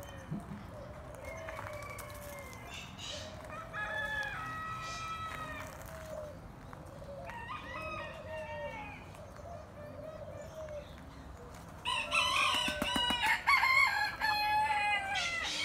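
Roosters crowing in turn, each crow a long held call, with a louder bout of overlapping crowing starting about twelve seconds in.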